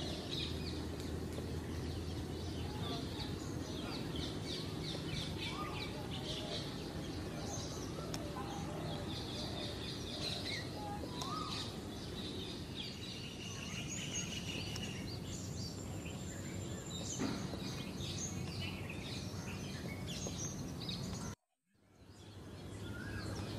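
Outdoor ambience: birds chirping and calling over a steady background noise. Near the end the sound drops out briefly and fades back in.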